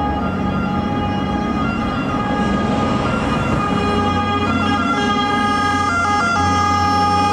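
Fire engine sirens sounding as the trucks approach, their tones holding steady pitches rather than wailing up and down, over the low rumble of the trucks' diesel engines. It grows slightly louder as they come closer.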